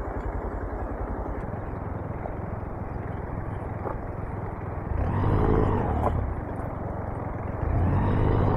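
Motorcycle engine running at low revs over road and wind noise. It gets louder about five seconds in and again near the end.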